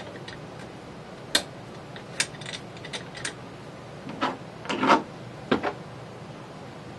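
Scattered clicks and knocks of small metal parts being handled on a hand grommet press as its cutting dies are fitted and parts are set down, with a cluster of louder knocks about four to five seconds in.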